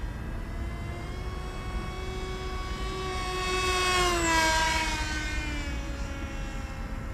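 Electric RC pusher plane flying past: its SunnySky 2814 brushless motor and 9x6 APC propeller give a steady pitched whine that grows louder, drops in pitch about four seconds in as the plane passes, and then fades.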